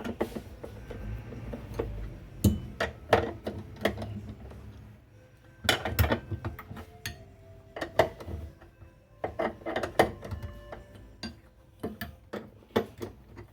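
Irregular metallic clinks and knocks, some ringing briefly, from a wrench tightening the mounting bolts of a washing machine motor. The bolts are tightened hard so the motor cannot slide and let the drive belt go slack.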